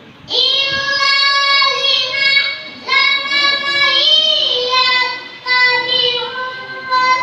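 A young boy reciting the Qur'an in the melodic tilawah style: long, ornamented held phrases, with short breaths about three and five and a half seconds in.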